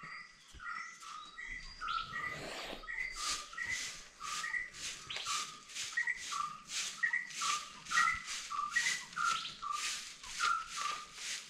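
A bird calling over and over with a short two-note chirp, about twice a second, with a steady rhythmic high scratchy swishing under it.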